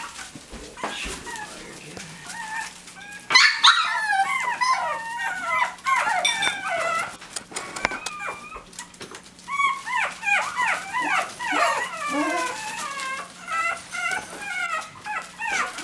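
Young Chihuahua puppies yipping and whining in many short, high-pitched, squeaky calls that start about three seconds in, pause for a couple of seconds midway, then come thick and fast again.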